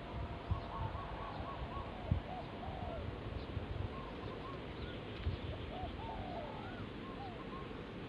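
Spotted doves cooing: short rounded coos repeated over and over, several overlapping at slightly different pitches. Low thumps sit underneath, strongest in the first two seconds.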